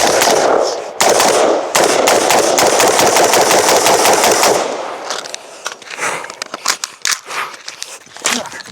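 Rapid gunfire from a 5.56 mm M16A4-pattern rifle: dense strings of shots for about four and a half seconds with two brief breaks near the start, then slower, more scattered shots.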